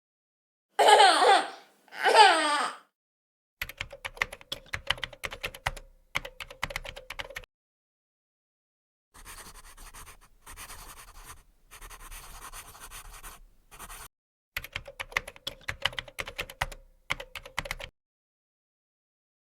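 Two short bursts of laughter, then spells of rapid key clicks from typing on a computer keyboard. A few seconds of softer scratching fall in the middle.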